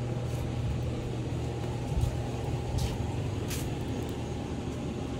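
Steady low mechanical hum with a few brief high hisses and a soft thump about two seconds in.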